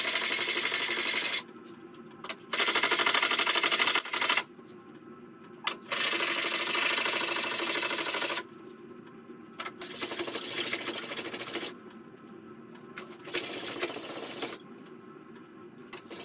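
Steel plane iron in a honing guide being rubbed back and forth on abrasive sharpening plates, in rasping runs of strokes with short pauses between them; the runs in the second half are quieter. The bevel is being polished up through the finer grades of plate.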